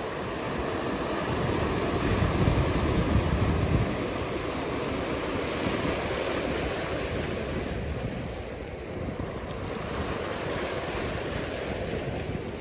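Ocean surf breaking and washing in a steady rush, with wind buffeting the microphone in low gusts that are heaviest in the first few seconds.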